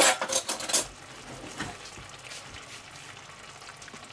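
A few quick metallic clinks in the first second, like a metal spoon knocking against cookware, then only a faint hiss.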